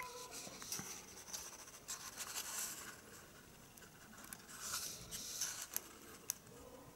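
Faint rustling and scratching of paper and packaging being handled, in short spells with a few light clicks.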